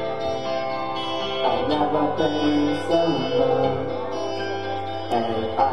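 Rock band playing live, guitars ringing on sustained chords that change every second or so.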